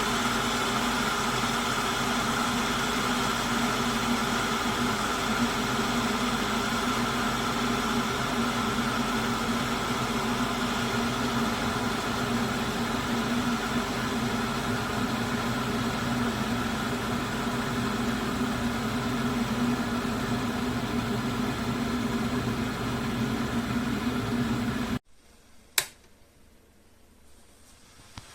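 Electric glass kettle heating water: a steady rumbling hiss with a faint hum in it, which stops abruptly near the end, followed by a single sharp click.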